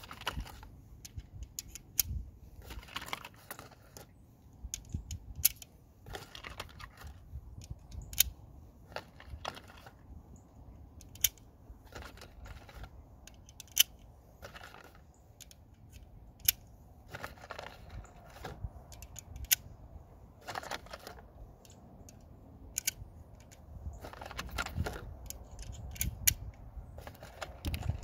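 Cartridges pressed one by one into an MP5 magazine: irregular sharp metallic clicks, with a few short scraping, rustling stretches between them.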